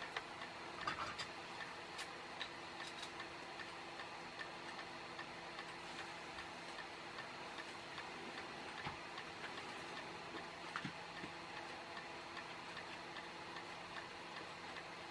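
Faint, irregular small clicks and taps from handling a small circuit-board kit, fitting components, soldering and trimming leads with side cutters. They sit over a steady low hum, with the sharpest clicks about a second in.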